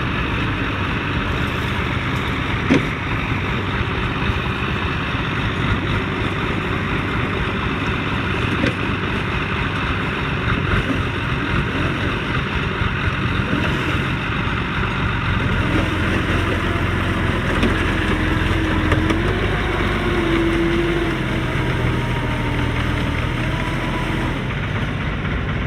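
A heavy vehicle's engine running steadily, with a sharp knock about three seconds in and the engine note wavering up and down in the second half.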